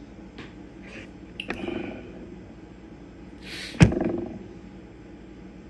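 Handling knocks: a few small clicks, a knock with a short ring about a second and a half in, then a quick swish and one sharp thump just under four seconds in.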